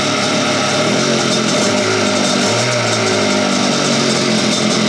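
1990 Sea-Doo SP's Rotax 587 two-stroke twin running out of the water and revved just barely, its pitch lifting briefly twice. It is running on a new magneto that is charging the battery.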